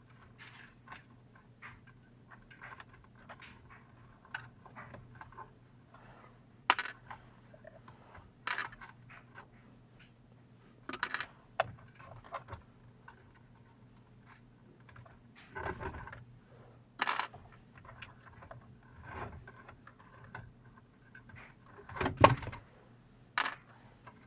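Handling noise: scattered clicks, knocks and light clinks of small tools and parts being picked up and set down, with sharper knocks about seven, seventeen and twenty-two seconds in. A faint steady hum runs underneath.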